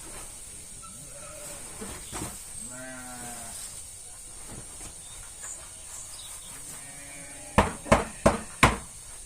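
A sheep bleats once, a quavering call about three seconds in, and fainter again later. Near the end come four sharp knocks in quick succession, the loudest sounds.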